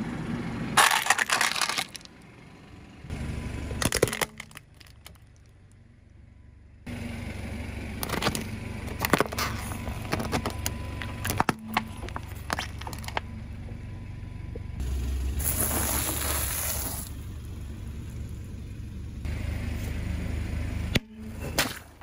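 Car tyre rolling slowly over objects and crushing them, in several separate goes: sharp cracking and crackling as plastic gives way, squashing of soft bags, and a spell of hissing spray as a liquid-filled bag bursts, with the car's engine running low underneath. The loudest crack comes near the end.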